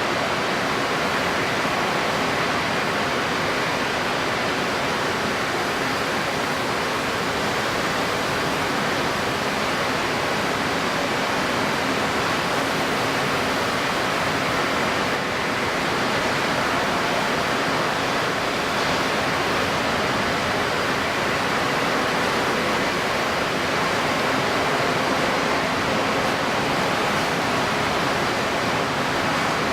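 Steady rushing noise of wind-driven choppy water and wind, even and unbroken, with the recording sped up.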